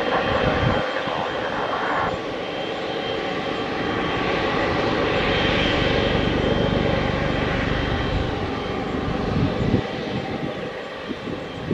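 Jet engines of a Boeing 777-300ER (GE90-115B turbofans) running, a dense roar with a low rumble that swells to its loudest about halfway through and then eases off.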